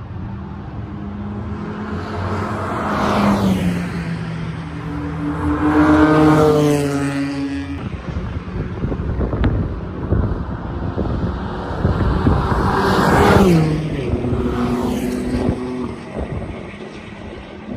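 Race cars passing at speed on a circuit straight, twice: once about three to eight seconds in, and again about twelve to fifteen seconds in. Each engine note drops in pitch as the car goes by.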